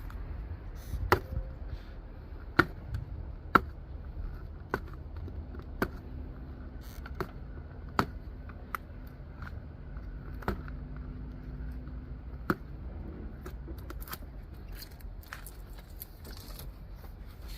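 Packaging of a portable car jump starter being handled and opened: about a dozen sharp, irregular clicks and taps over a low steady rumble.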